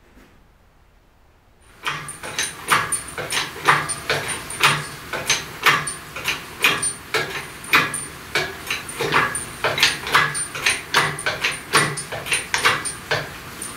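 Engine hoist and its chain squeaking and creaking in a steady rhythm, about three times a second, as the hanging engine is rocked into position. It starts about two seconds in, after quiet shop room tone.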